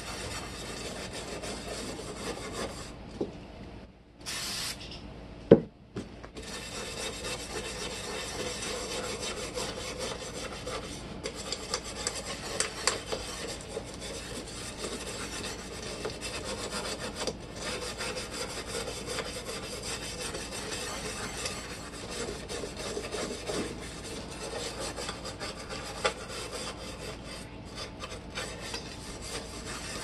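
Small stiff brush scrubbing a rusty round metal plate from an antique Westinghouse table fan, a steady scratchy rubbing. It breaks off for about two seconds about four seconds in, with one sharp click in the pause.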